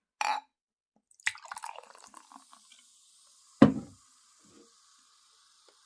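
A drink poured into a glass to mix makgeolli and beer: a pouring stretch, then a bottle or glass set down with one sharp knock about three and a half seconds in, followed by a steady faint fizz from the carbonated mix.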